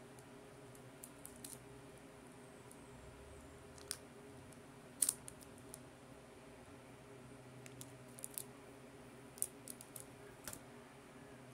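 Clear plastic shrink wrap being pulled off a cardboard phone box by hand: scattered small crackles and clicks, the loudest about five seconds in, over a faint steady hum.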